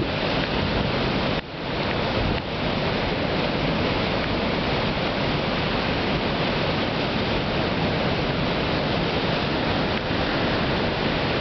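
Heavy surf from a typhoon swell: big waves breaking and churning in a dense, steady rush of water noise, with a brief dip about one and a half seconds in.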